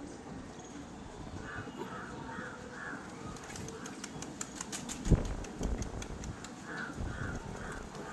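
A crow cawing in two runs of four caws, about a second and a half in and again near the end. A single loud low thump comes about five seconds in.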